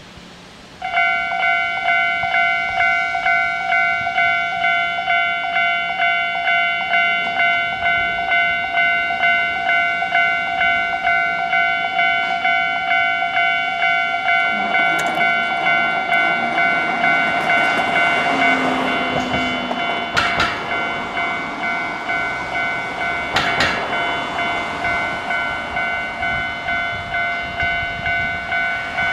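Japanese level-crossing warning bell starts about a second in and rings steadily at about two strikes a second. From about halfway, the running noise of an approaching Ichibata Electric Railway 1000 series electric train builds up beneath it, with a couple of sharp clacks near the end.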